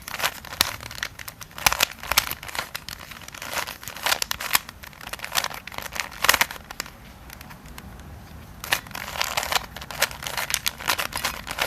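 A Fisher cube, a plastic shape-modded 3x3 Rubik's cube, being turned by hand through a run of algorithm moves: quick, irregular plastic clicks and scrapes as the layers are twisted and snap into line.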